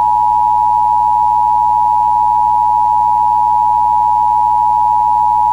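Emergency Alert System attention tone: a steady, unbroken, high-pitched electronic tone at constant loudness, sounding before the alert message repeats.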